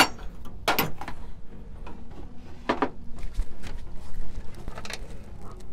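Hand tools being handled, a 10 mm socket and ratchet: a few sharp metallic clicks and knocks, the strongest about a second in and a close pair near the middle.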